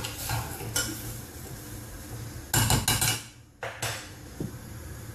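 A spoon clinking and scraping against a stainless steel saucepan as the fruit is stirred, with a cluster of louder metallic knocks about two and a half seconds in and one more shortly after.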